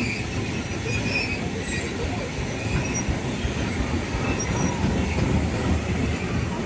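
Railway train rolling on the track: a steady low rumble with short, high wheel squeaks now and then.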